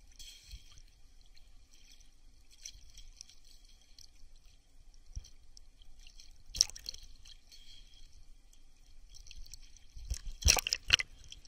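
Small waves lapping and trickling right at a camera held at the water's surface. There is one sharp splash about two-thirds of the way through, and a louder cluster of splashes near the end.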